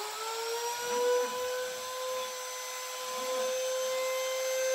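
CNC router spindle running at speed with a steady high whine and several overtones, its pitch settling in the first moment after spin-up.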